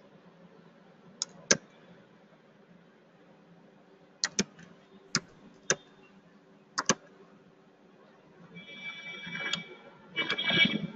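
Computer keyboard keystrokes and mouse clicks: a handful of sharp single clicks, several in quick pairs, over a faint steady hum, then a denser flurry of clicks and rattling near the end.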